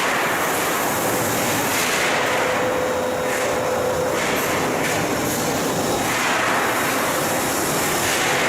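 Steel-coil cut-to-length line running: a steady rolling mechanical noise of rollers and drives with a faint steady whine, swelling and easing every few seconds.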